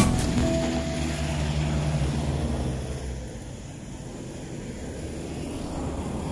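Low engine rumble of a passing motor vehicle, fading away over the first three seconds and leaving faint steady background noise.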